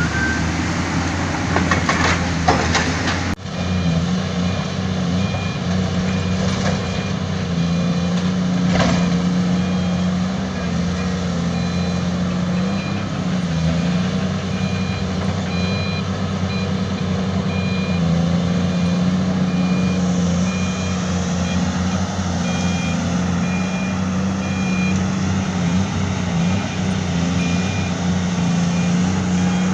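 Diesel engine of heavy earthmoving machinery running steadily, with a reversing alarm beeping over it at a regular pace.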